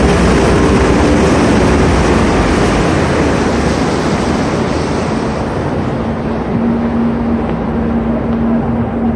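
Tour catamaran under way: a steady engine drone under the loud rush of its churning wake. The water noise eases off about halfway through, and a steady hum comes in later on.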